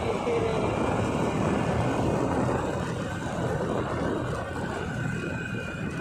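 Steady noise of a vehicle on the move, with a faint steady whine coming in near the end.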